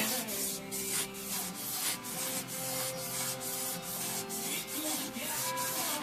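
Wet fine-grit sandpaper, wrapped around a Toyota 1ZZ-FE crankshaft rod journal and worked back and forth with a shoelace, rubbing on the steel in quick, even strokes as the journal is polished.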